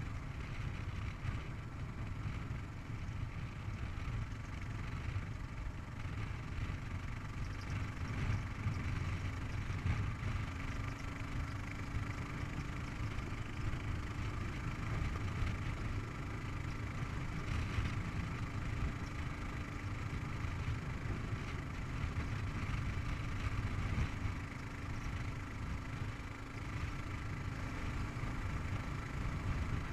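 Kawasaki KLR 650's single-cylinder four-stroke engine running steadily as the motorcycle cruises on a paved road, heard from the rider's position.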